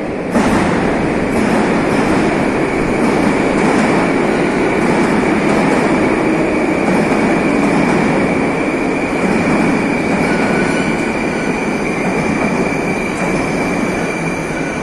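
Moscow Metro train running alongside the station platform: a loud rush of wheels and running gear with a steady high whine over it. It rises sharply about half a second in and eases slightly near the end.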